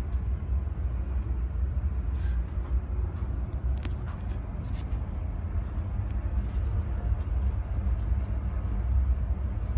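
Steady low machinery rumble heard inside a container ship's bridge, with a few faint clicks.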